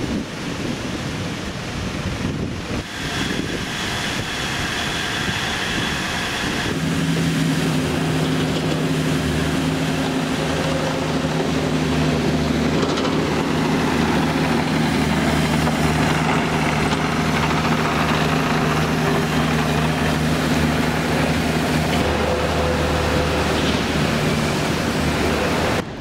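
City street traffic noise with wind on the microphone. About seven seconds in, a steady low mechanical hum sets in and holds, with a brief high whine just before it.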